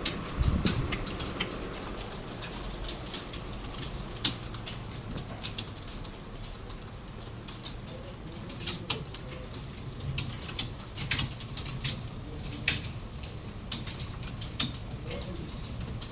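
Many computer keyboards clicking at once, irregular keystrokes from a room of students typing a timed test.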